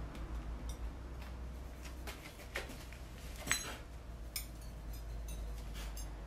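Ceramic plates and bowls clinking and tapping against each other as they are handled, a scatter of light knocks with two louder clinks in the middle.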